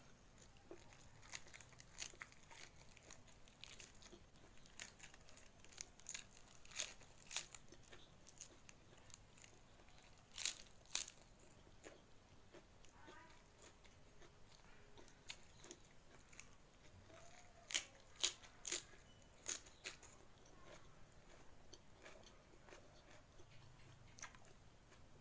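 Faint chewing with crisp crunches of raw cabbage leaf eaten with rice, and soft mouth clicks between them. A few louder crunches come about ten seconds in and again around eighteen seconds in.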